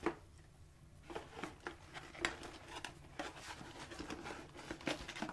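Hands rummaging through cardboard boxes and plastic packaging: scattered light rustles, taps and clicks.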